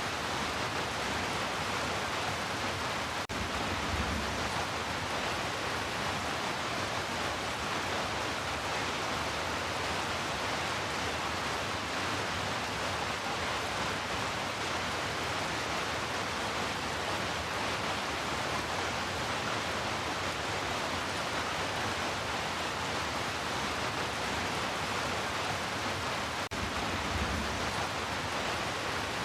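Steady heavy rain falling with an even hiss. A brief low rumble comes twice, about 4 seconds in and near the end.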